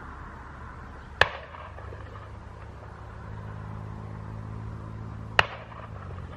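Paramotor engine droning steadily overhead, a low hum. Two sharp cracks break through it, about a second in and again about four seconds later.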